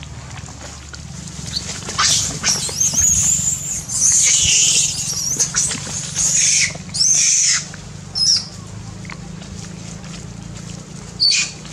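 Long-tailed macaques screaming: a run of loud, shrill screams starting about two seconds in, then one short scream and another near the end.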